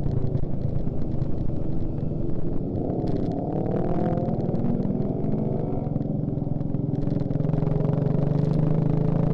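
Suzuki Shogun Axelo R's single-cylinder four-stroke engine running under way. Its pitch climbs twice in the middle, as when accelerating through the gears, then settles into a steady hum near the end.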